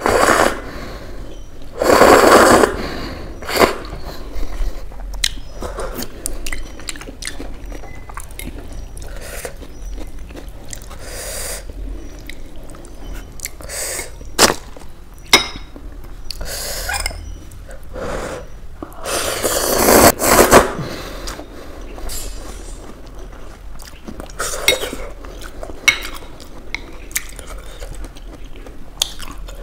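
A person slurping and chewing soupy instant noodles, with a fork and a ceramic spoon clinking against a glass bowl. The loudest slurps come about two seconds in and again around twenty seconds in, with sharp clinks between them.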